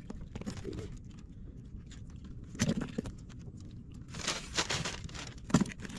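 Fishing handline being worked and pulled in by hand: scattered soft knocks and rustles, with a cluster of them about four seconds in, over a low steady rumble.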